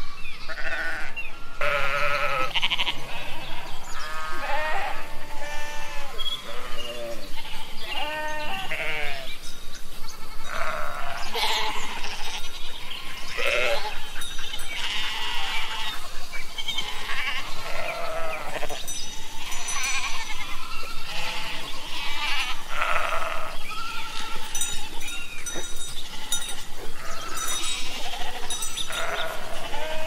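A herd of goats and sheep bleating, many wavering calls overlapping one another without pause.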